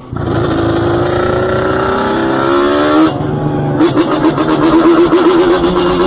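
Yamaha Banshee's twin-cylinder two-stroke engine running hard under acceleration, its pitch climbing slowly, with a brief break about three seconds in. After that it is held at high revs, its pitch wavering up and down as the throttle is worked. Wind rushes over the microphone.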